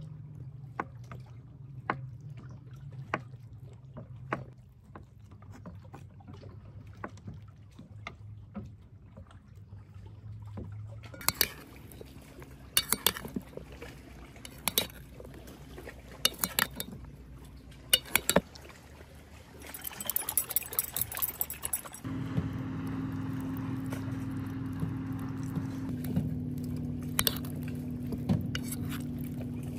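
A knife cutting a block of feta on a wooden board, with light, regular taps about one and a half a second. From about eleven seconds in, a metal spoon scrapes and clinks as it tosses the salad in an enamel bowl. A steady low hum comes in about two-thirds of the way through and holds.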